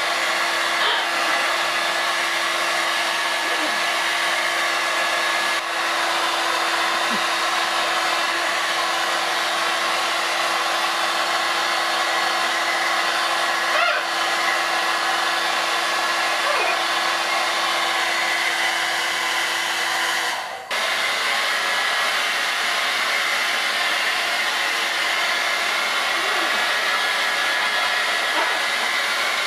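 Steady hiss of a running shower's water spray, with a low steady hum that drops out about two-thirds of the way through.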